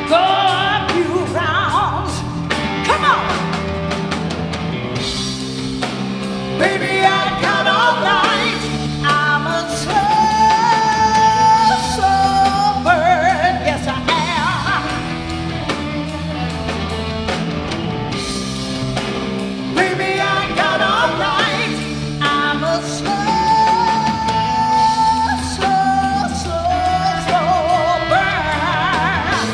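Live blues band playing: a woman singing over electric guitar, electric bass and a drum kit.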